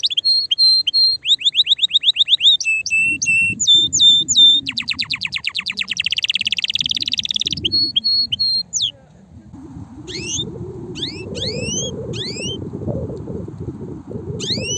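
Male canary singing a song of fast repeated-note phrases and rapid trills that runs for about nine seconds and then stops. Short rising chirps follow every half second or so over a low rumble.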